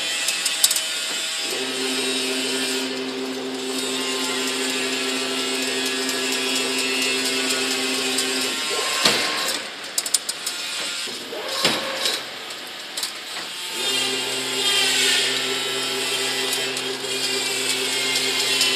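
Automatic chain link fence machine running: a steady motor hum over mechanical clatter. For a few seconds in the middle the hum stops and a run of sharp metal knocks and clanks sounds, then the hum starts again.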